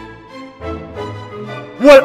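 Background music with held notes swelling in loudness. Deeper notes come in about half a second in.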